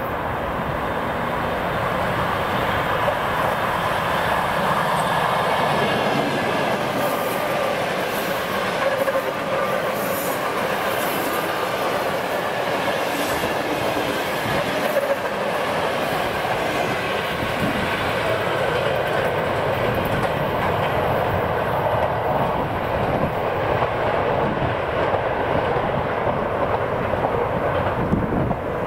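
ED4M DC electric multiple unit passing close by at speed: a steady rumble of steel wheels rolling on the rails, with scattered sharp clicks as the cars go over the track.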